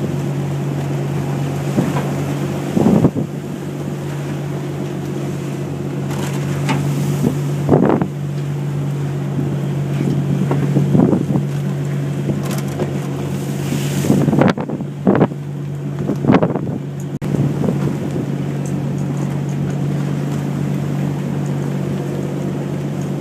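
Fishing boat's engine running with a steady drone, with wind buffeting the microphone and several brief louder rushes of wind and water.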